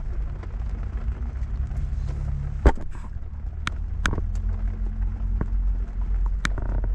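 Steady low rumble of a car idling, heard from inside the cabin, with a handful of sharp taps scattered through, the loudest a little under three seconds in. A windshield wiper sweeps across wet glass near the end.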